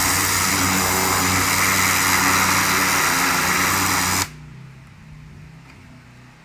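Pressure washer running with a steady engine hum and the hiss of its spray. The spray noise cuts off abruptly about four seconds in, leaving a faint low hum.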